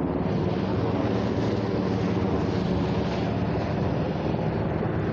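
Helicopter flying overhead: a steady drone of rotor and turbine engine noise.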